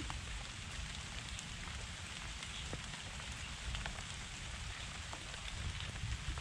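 Steady rain falling on leaves and a wet path, an even hiss with scattered single drops ticking, and a low rumble underneath.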